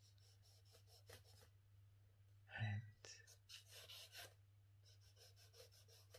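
Faint scratching of charcoal strokes on drawing paper, in two quick runs of short strokes, the second about three seconds in, over a low steady hum.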